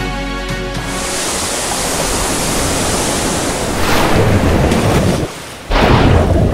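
Seawater rushing and splashing over the deck of a surfaced submarine underway, heard from the waterline. The rush drops out briefly a little past five seconds in, then surges back.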